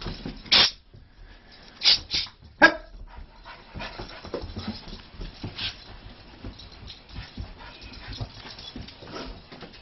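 Dog barking: four short, sharp barks in the first three seconds, then only faint shuffling.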